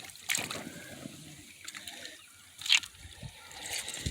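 Shallow creek water trickling, with two brief splashes, the second and louder one near three quarters of the way through.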